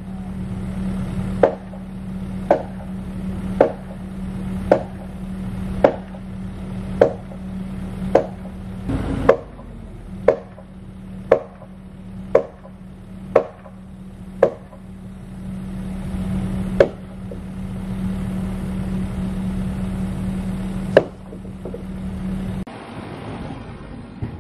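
Hammer blows on the timber frame, about one a second for thirteen strikes, then two more a few seconds apart, each sharp with a short ring. Under them runs the steady hum of an idling excavator engine, which drops away near the end.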